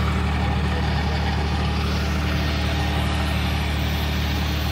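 Diesel engine of a JCB wheeled loader running steadily at idle close by, a constant low hum with no change in speed.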